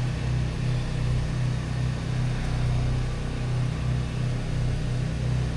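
Steady low mechanical hum of a motor running in the background.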